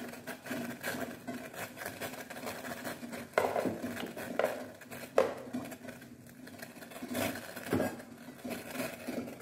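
Light clinks and knocks of steel cookware, with three sharper knocks spread through, over a steady low hum.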